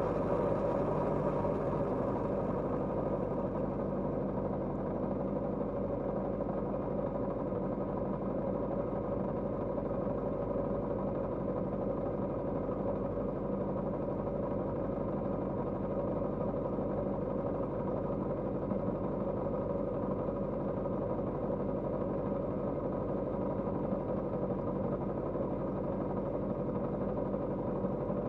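Kawasaki GPZ550's air-cooled inline-four engine running at a steady speed, its pitch holding nearly constant throughout, with a faint hiss that fades over the first few seconds.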